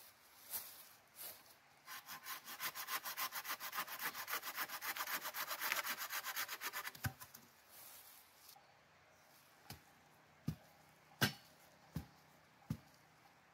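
Folding hand saw cutting through a wooden pole in quick, even strokes for about five seconds, then stopping. After it, a few separate knocks of wood on wood as the pole is handled, the loudest near the end.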